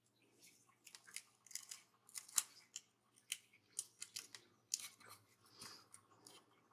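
Small scissors cutting a planner sticker, a quick, irregular run of faint, short snips.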